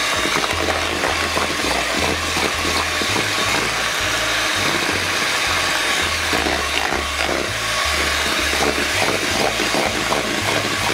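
Electric hand mixer running steadily, its two beaters whipping a thick cream-cheese and condensed-milk batter in a plastic bowl. Background music plays underneath.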